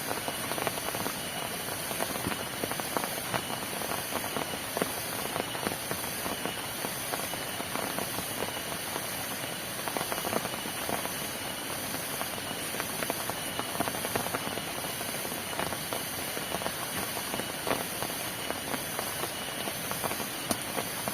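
Heavy rain falling, a dense, steady patter of drops.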